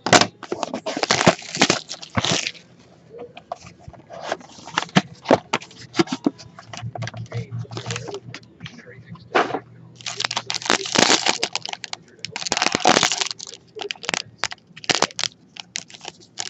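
Clear plastic shrink wrap crackling and tearing as it is pulled off sealed boxes of trading cards, in irregular bursts that are densest about ten to thirteen seconds in.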